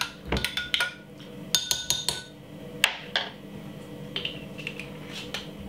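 Metal spoon stirring in a tall drinking glass and clinking against its sides, with one ringing clink about a second and a half in, then a few lighter knocks.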